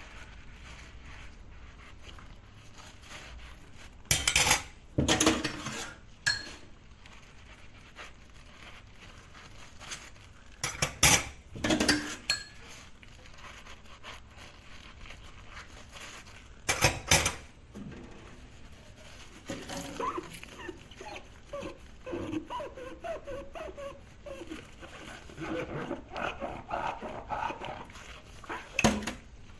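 Dishware and cutlery clattering and clinking as dishes are washed in a kitchen sink. There are loud bursts of clatter about 4, 11 and 17 seconds in and again near the end, with a run of lighter, ringing clinks in the last third.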